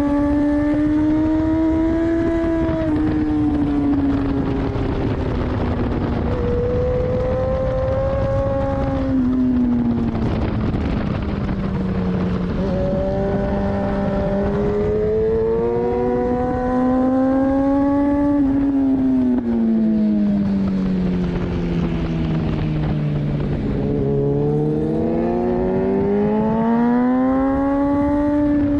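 2014 Kawasaki ZX-10R's inline-four engine at track pace, heard from an onboard camera. Its pitch drops sharply twice in the first ten seconds, sinks over several seconds in the second half, then climbs again near the end.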